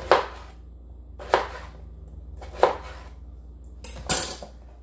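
Kitchen knife chopping through a raw potato into wedges: three sharp chops about a second and a quarter apart, then a longer, scraping cut about four seconds in.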